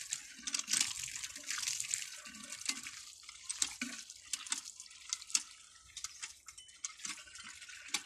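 Water gushing from the spout of a cast-iron hand pump and splashing onto the ground as its handle is worked.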